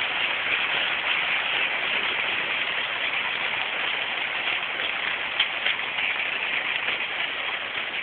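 Rain falling: a steady, even hiss with a few sharper drop hits now and then.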